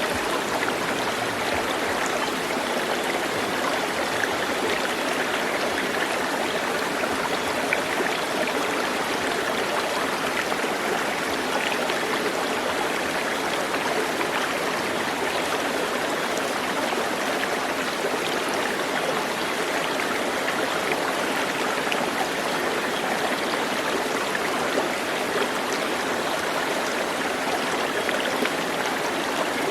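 Flowing water: a steady, even rush with small trickling splashes, like a forest stream.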